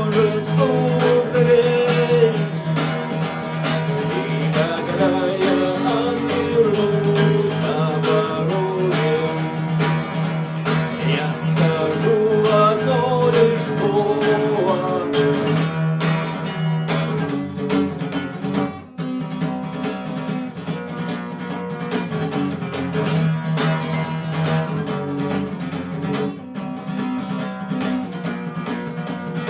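Instrumental passage of a song: strummed acoustic guitar carrying on steadily, with a wavering melody line over it in the first half and a short dip about nineteen seconds in.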